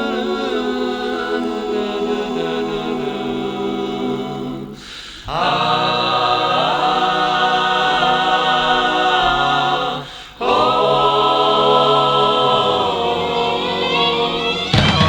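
Music: a wordless vocal harmony holding long chords, with two brief breaks about five and ten seconds in.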